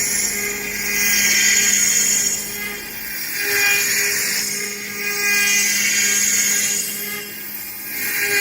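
CNC router spindle running and cutting wood: a steady hum under a high-pitched cutting whine that swells and fades about every two and a half seconds as the tool moves through its passes.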